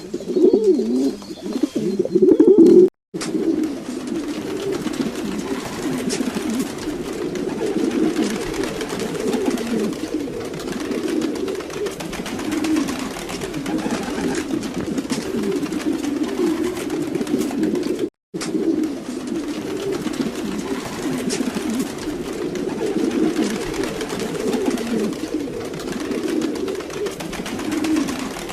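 Domestic pigeons cooing, many low coos overlapping with no pause between them, a little louder in the first couple of seconds. The sound cuts out for an instant twice.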